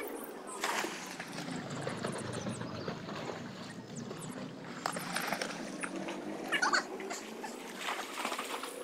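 Water lapping and sloshing against the pool edge right at the camera, with a few short, sharp splashes scattered through it.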